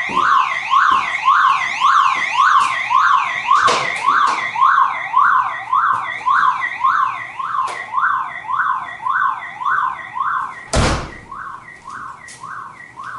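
Car alarm siren wailing in fast up-and-down sweeps, about two a second, growing weaker toward the end. A single loud thump comes about eleven seconds in.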